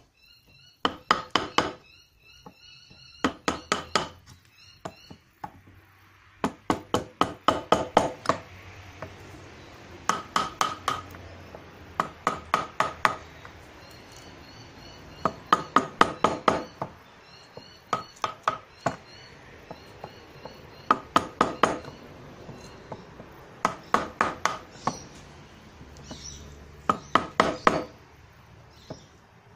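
Wooden mallet striking the plastic handle of a wood chisel as it cuts into wood, in quick runs of about four to eight knocks with short pauses between them.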